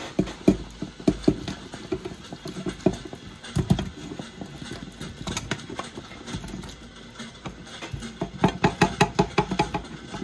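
Irregular knocks and clatter of seared turkey neck pieces and a stainless steel pan tipping into a pressure cooker's metal inner pot, with a run of quick taps about eight seconds in.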